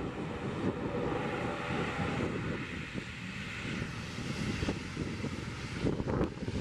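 ATR 72-600 turboprop airliner taxiing, its twin Pratt & Whitney PW127 turboprop engines and propellers running steadily, mixed with wind buffeting the microphone.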